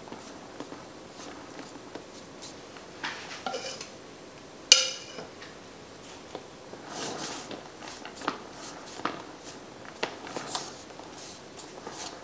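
A utensil spreading and scraping cream frosting over a cake layer, with light scrapes and taps and one sharp clink about five seconds in.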